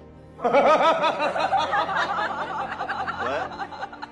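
A rapid run of high-pitched vocal sounds, like giggling, starting about half a second in.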